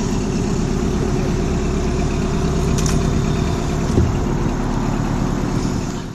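Boat's outboard motor running steadily, with a single knock about four seconds in; the sound cuts off suddenly at the end.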